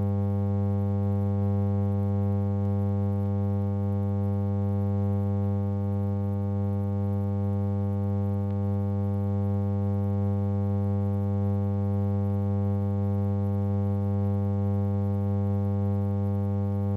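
Steady electrical hum with a stack of overtones, strongest in its low notes, unchanging throughout. It is a transfer or playback hum on the track of a newsreel that has no sound of its own.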